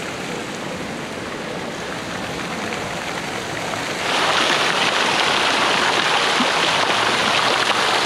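Water from a rock fountain's jets splashing into its basin, a steady rushing spray that gets much louder and brighter about four seconds in.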